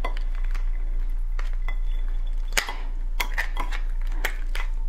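Shell of a raw swimming crab being pried apart by hand: a series of sharp clicks and cracks, the loudest about two and a half seconds in, with a quick run of them near the end.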